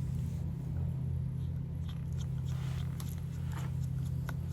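A steady low hum, with a few faint, scattered clicks and scrapes of small tools and screws being handled on the phone.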